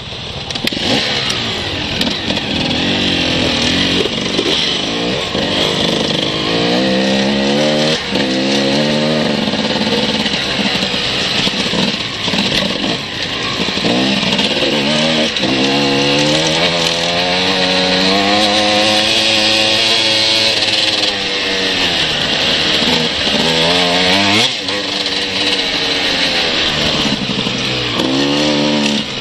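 Enduro dirt bike engine heard from on board while riding a trail, its pitch repeatedly rising and falling as the throttle opens and closes through gear changes, over a steady hiss.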